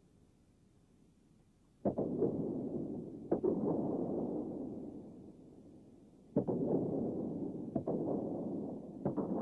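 A Shaolin staff cracking sharply about five times, starting about two seconds in. Each crack is followed by a rush of noise that fades over a few seconds.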